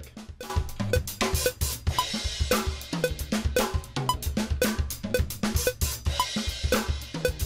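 Multi-tracked live acoustic drum kit playing a steady groove (kick, snare, hi-hat, toms, overheads and room mics), time-stretched to a 114 BPM grid with Cubase's Elastic Pro algorithm. A metronome click sounds on each beat, about two a second, with a higher click on each bar's downbeat.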